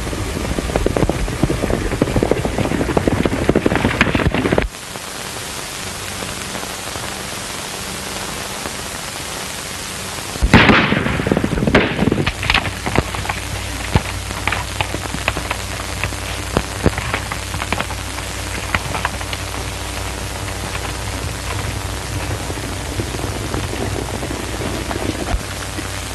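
Horses galloping on an early sound-film soundtrack thick with steady hiss. The clatter stops abruptly about five seconds in. About ten seconds in comes a loud crashing burst, followed by scattered sharp knocks and cracks.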